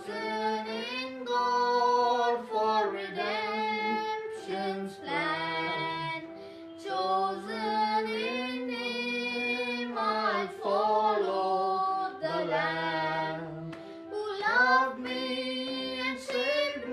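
A boy singing a hymn, phrases of held notes with short breaks between them.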